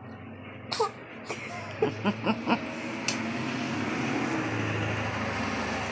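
Steady engine noise with a low hum, growing gradually louder, like a motor vehicle approaching. A few brief voice sounds come about one to two and a half seconds in.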